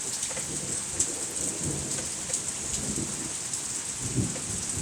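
Steady rain with scattered drops ticking close by, and low thunder rumbling underneath.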